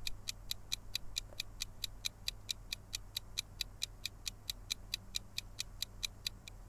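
Countdown-timer sound effect: quick, even ticks, about four a second.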